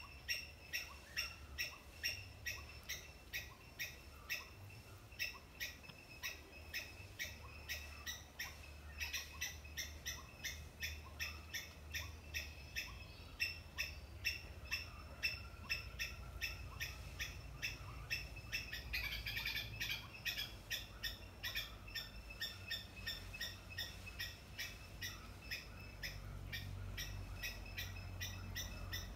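An animal's short, high chirping call, repeated evenly about two or three times a second without a break, with a brief flurry of louder calling about two-thirds of the way through. A low rumble runs underneath.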